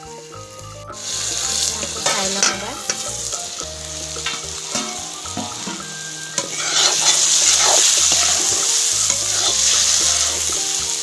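Goat tripe and liver frying in oil in an iron kadai. The sizzle comes up suddenly about a second in as the steel plate lid comes off, then a metal spatula stirs and scrapes through the meat, and the sizzling grows louder about halfway through. The oil has separated from the masala and the meat is frying in it.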